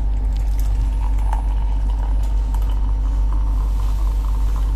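Steady low rumble and light rattling of a moving passenger train carriage, with hot water running from the carriage's titan boiler tap into a steel mug.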